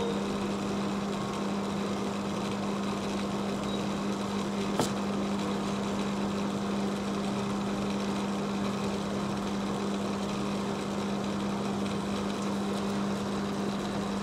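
Steady low machine hum with a hiss behind it, even throughout, and a single faint click about five seconds in.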